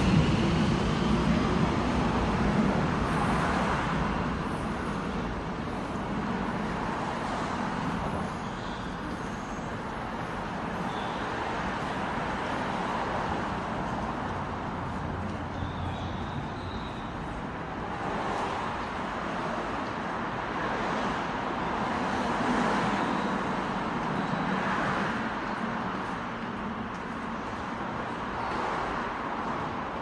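Steady hum of road traffic and station ambience heard on an open-air elevated subway platform, a little louder in the first few seconds and swelling now and then.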